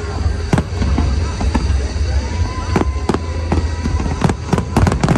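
Aerial fireworks bursting: a string of sharp booms and cracks, coming thick and fast in a quick run near the end, over a steady low rumble.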